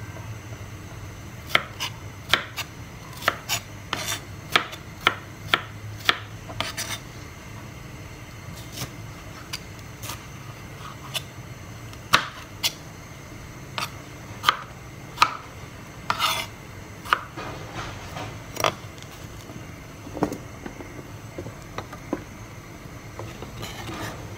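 Chef's knife chopping red bell pepper on a plastic cutting board: irregular sharp knocks of the blade striking the board, about one or two a second, thinning out over the last few seconds.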